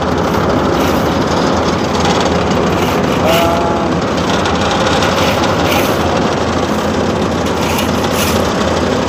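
Steady, loud din of heavy asphalt-paving machinery engines running, an even machine noise that holds without a break.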